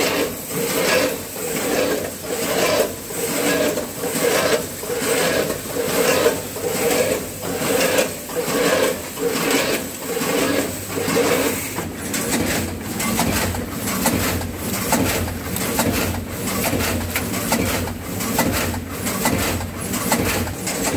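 Multihead weigher and vertical pouch packing machine running, cycling in an even rhythm of about one and a half beats a second as product is weighed and dropped into pouches. A steady low hum joins about halfway through.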